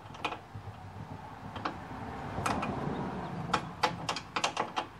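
Irregular sharp clicks and knocks from hand work on a lawn tractor's underside, with a quick run of them in the second half, over a low rumble.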